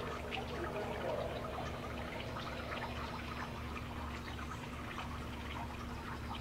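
Outdoor ambience with the siren no longer sounding: a steady low hum under scattered faint short ticks.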